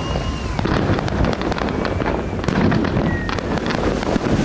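Fireworks display over the sea: a dense, continuous run of sharp cracks and pops from bursting shells.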